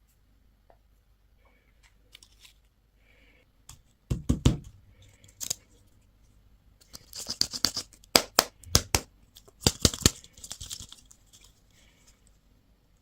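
Plastic candy packaging handled and torn open: sharp crackling and tearing in bursts, once about four seconds in and again from about seven to eleven seconds.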